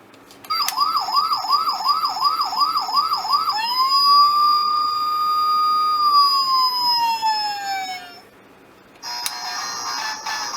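A toy friction-powered fuel tanker truck's electronic sound module playing a siren. It starts with a fast warbling wail of about three cycles a second, then gives one long tone that rises, holds and slowly falls before cutting off. About a second later a tinny electronic tune starts.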